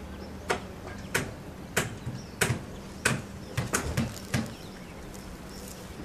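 A series of sharp clicks, about one every half second, bunching into a quick run of four about two-thirds of the way through, then stopping.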